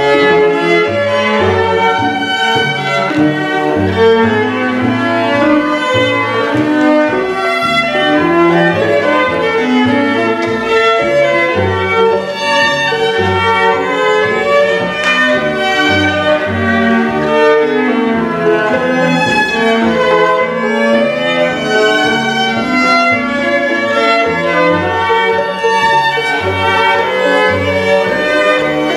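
Live string quintet on period instruments, two violins, viola, cello and double bass, playing a dance tune at a steady, even beat, with the bass notes pulsing regularly underneath.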